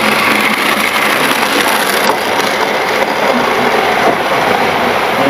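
Model train running on the track close by: a steady whirring rattle of its wheels on the rails and its small electric motor.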